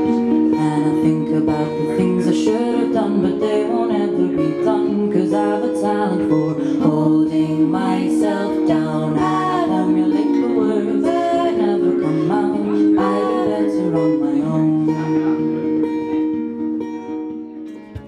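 Live song with guitar chords and a woman singing, fading out near the end.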